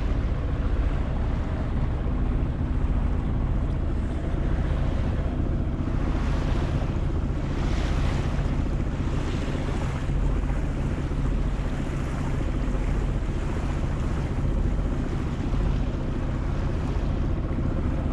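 C&C 30 sailboat's inboard engine running steadily under power in a flat calm, a constant low drone, with water rushing along the hull and wind buffeting the microphone.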